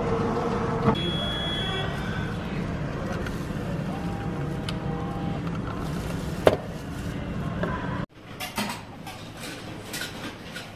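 Self-service coffee machine running steadily as it fills a paper cup, with a short electronic beep about a second in and one sharp click at about six and a half seconds. After about eight seconds the machine noise gives way to a quieter room with light clinks of bowls and utensils.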